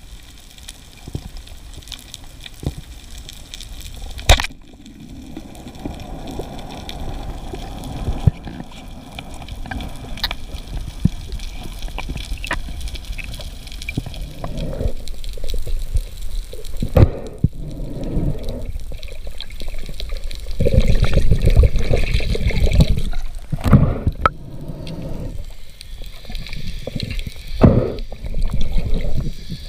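Water moving around an underwater camera: a low rushing sound with a few sharp clicks and knocks, growing louder about two-thirds of the way through.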